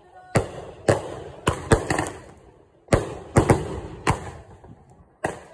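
Aerial consumer fireworks bursting overhead: a string of about a dozen sharp bangs at uneven intervals, some in quick clusters, each fading quickly.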